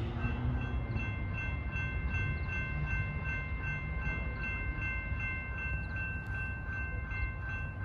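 Railroad grade-crossing bell ringing steadily, about three strikes a second, each stroke ringing into the next, over a low rumble.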